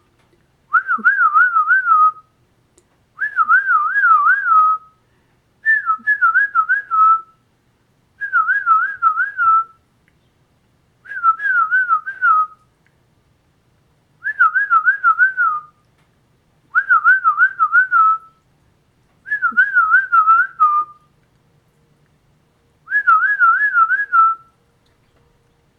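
A person whistling a warbling bird-like call, repeated nine times. Each phrase lasts about a second and a half and trills quickly up and down in pitch, with a gap of a second or two between phrases.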